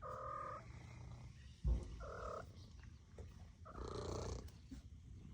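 A cat meowing three times in short, separate calls, with a single dull thump between the first and second call.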